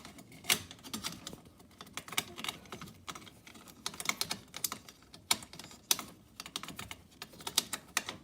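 Irregular clicks and taps of small metal and plastic electrical fittings being handled and fitted: a cable clamp and its locking ring going onto an outlet box.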